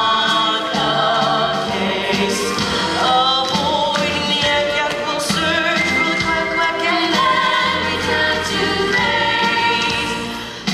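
A group of voices singing a musical-theatre show tune together, with vibrato on the held notes.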